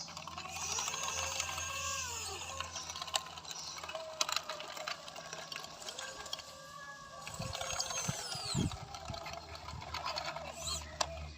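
Small electric motors of a handmade 1/14-scale RC bulldozer whining as it works, the pitch rising and falling with throttle, with scattered clicks and knocks from the machine.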